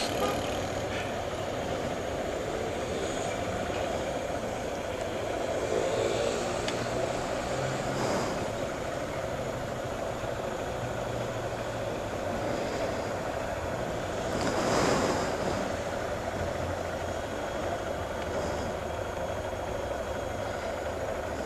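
Motorcycle engine running with steady street traffic around it. A vehicle passes close about fifteen seconds in, the loudest moment.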